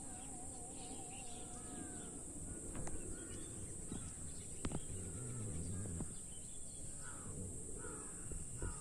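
Birds calling outdoors: many short chirps and whistles throughout, over a steady high hiss and a low background rumble, with a few sharp clicks.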